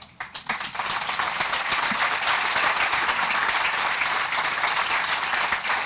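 Audience applauding. It begins with a few scattered claps and swells within about a second into full, steady applause.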